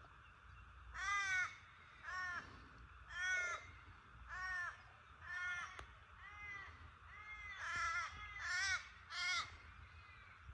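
A crow cawing repeatedly: about ten harsh calls, each under half a second long, coming roughly one a second.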